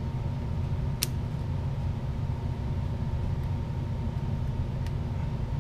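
Steady low mechanical hum, with one sharp click about a second in as a small metal pin tool knocks against the brass grenade mechanism.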